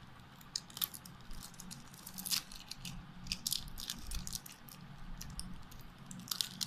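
Thin clear plastic wrapping crinkling and crackling under the fingers as it is peeled off a lipstick pencil, in scattered small, irregular crackles.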